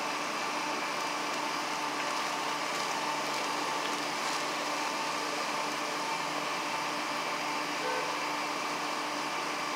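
Steady, unchanging mechanical whir and hum with a few held tones, like an idling vehicle with its ventilation fan running.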